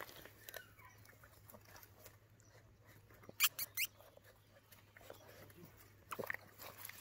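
Eight-week-old puppy rustling and chewing in bark mulch, mostly faint, with a quick cluster of three short sharp sounds about three and a half seconds in and a few smaller ones near the end.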